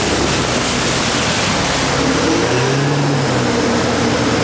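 A rigid inflatable boat's engine running under way, its note shifting slightly about halfway through, under a loud, steady rush of churning water from the wake and the turbulent tidal current.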